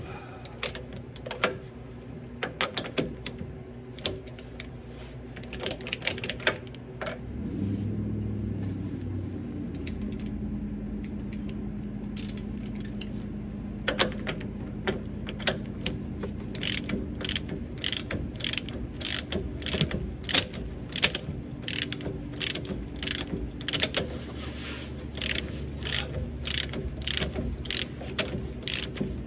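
Hand ratchet wrench clicking as it backs off the nut on a front upper control arm's ball joint: scattered clicks at first, then a steady run of about two clicks a second. A steady low hum sets in several seconds in underneath.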